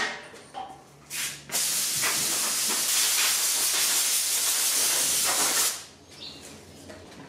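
Compressed air hissing from a hand-held air gun on a shop air hose, one continuous blast of about four seconds that cuts off suddenly, after a few short knocks of handling.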